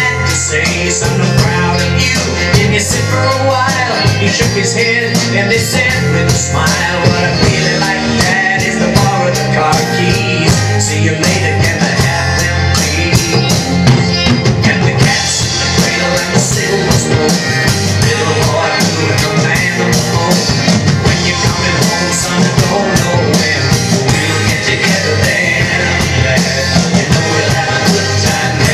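Drum kit played along to a recorded rock song with guitar: a steady beat of drum strokes and cymbal hits over the band track.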